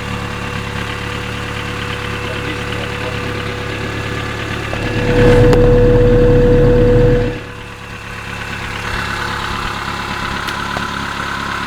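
Honda F20Z1 four-cylinder engine running at idle, with the ringing knock that appeared after its overhaul, partly masked by the exhaust. About five seconds in it gets louder with a steady hum for about two seconds, then drops back.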